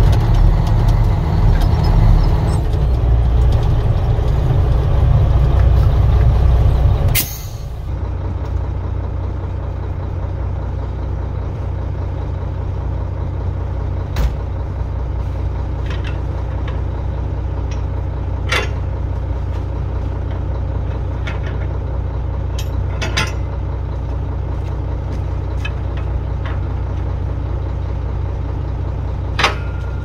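Mack tri-axle log truck's diesel engine running loud under load, heard from inside the cab. About seven seconds in, a short sharp burst of air as the brakes are set, then the engine idles steadily, with a few short knocks now and then.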